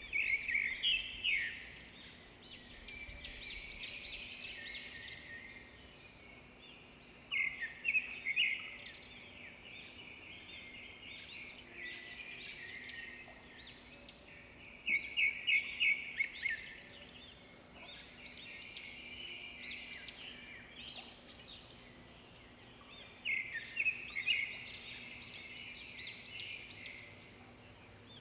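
Birds singing: one bird repeats a loud, rapid run of high chirping notes about every eight seconds, with softer chirping between the runs.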